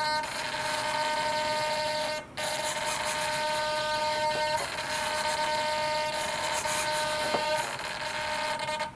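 KST X10 mini wing servo, driven by a servo tester, humming with a steady high whine as it holds the aileron deflected. The hum cuts out briefly about two seconds in and changes twice as the servo moves the aileron to new positions.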